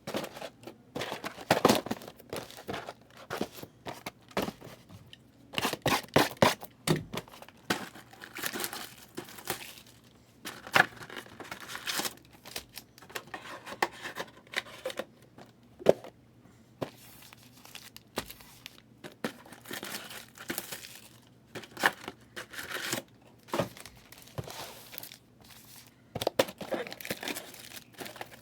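Plastic wrap and foil wrappers on trading-card boxes and packs being torn open and crinkled by hand, in irregular bursts of tearing and rustling.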